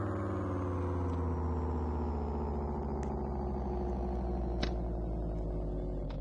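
Tornado warning siren winding down, its tone sliding slowly and steadily lower.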